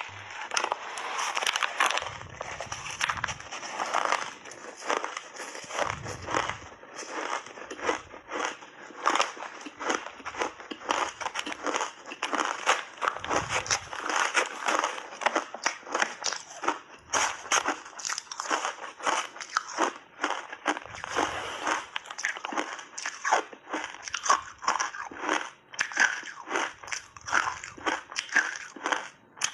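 Close-up crunching and chewing of refrozen shaved ice: a rapid, irregular run of sharp, crackly crunches as the ice is bitten and ground between the teeth.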